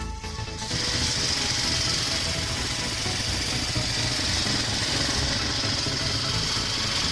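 An ATV engine idling steadily. It comes in at full level about a second in, after a brief quieter moment.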